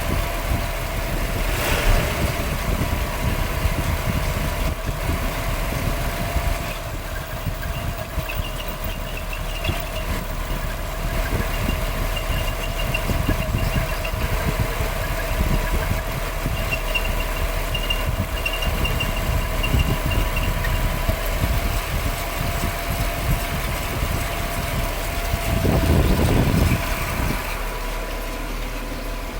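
Nissan Cedric PY31 engine idling with a distributor noise, a faint high whine that comes and goes; the owners take it for a distributor centre shaft that has run dry of oil. Near the end there is a louder low swell of a few seconds.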